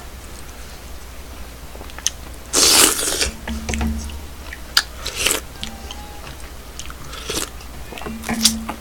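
A man eating beef and radish soup: a loud slurp about two and a half seconds in, then chewing with a few sharp clicks and short closed-mouth hums.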